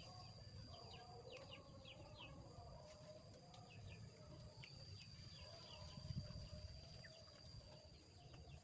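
Faint rural ambience near silence: many quick high bird chirps over a steady high-pitched tone, with faint chicken calls.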